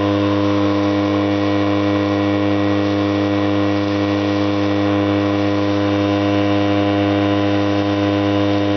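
Home-made vortex gun running continuously with a steady, loud, low buzzing hum and many overtones.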